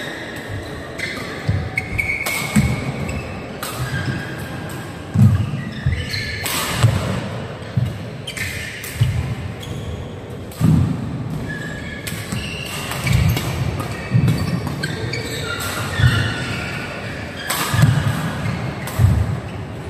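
Badminton rally in a large indoor hall: a string of sharp racket hits on the shuttlecock, each followed by a ringing echo, over players' feet thudding on the court.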